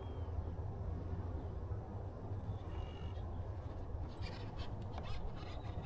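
Steady low rumble of wind on the microphone, with scratchy rustling handling noise starting about four seconds in.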